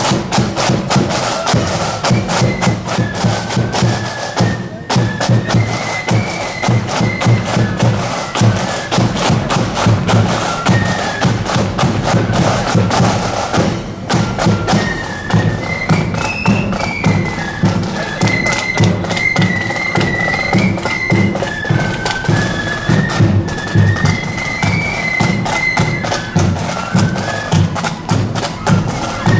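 Marching flute band playing a tune over a steady beat of drums, the flutes' high melody carrying above the drumming.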